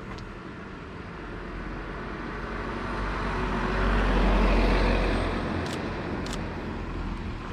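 A car drives past, its engine and tyre noise swelling to a peak about halfway through and then fading away. Two short, sharp clicks come just after the peak.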